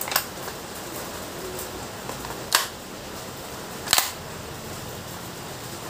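GHK G5 gas blowback airsoft rifle firing three single shots, each a sharp crack of the gas discharge and cycling bolt. The shots come right at the start, about two and a half seconds in, and about a second and a half after that.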